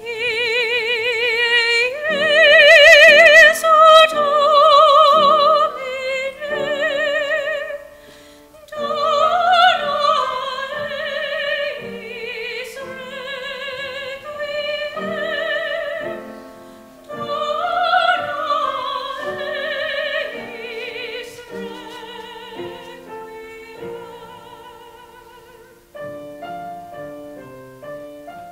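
A solo singer with a wide vibrato, accompanied by piano. Near the end the voice stops and the piano plays on alone.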